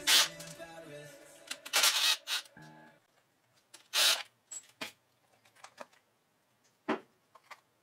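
Cordless impact driver running in several short bursts as it backs out the timing-cover bolts, with a brief motor whine between them. Then comes a few light clicks and knocks as the loosened timing cover is worked off by hand.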